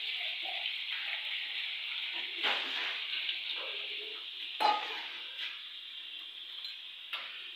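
Flour-coated chicken pieces deep-frying in hot oil, a steady sizzle, with a few knocks of a utensil against the pan, the loudest about halfway through.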